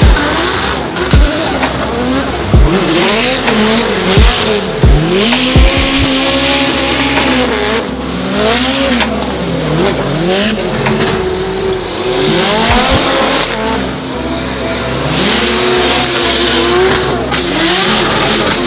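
Drift car at full throttle, its engine note swinging up and down again and again as the throttle is worked, with tyres squealing as the car slides. Loud low thumps in the first several seconds.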